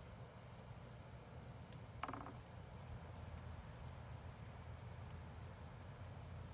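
Quiet background: a low steady hum and a faint high hiss, with one short sharp click about two seconds in.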